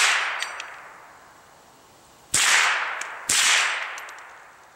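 Marlin Model 60 semi-automatic .22 LR rifle firing twice, about a second apart, each sharp crack trailing off in a long echo. The echo of a shot fired just before also dies away at the start.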